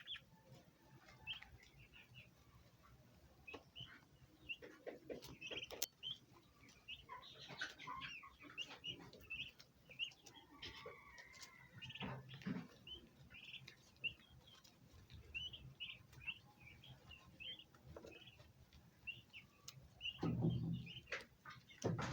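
Turkey poults peeping over and over in short, high chirps, with a turkey hen's lower clucking calls breaking in now and then, loudest near the end.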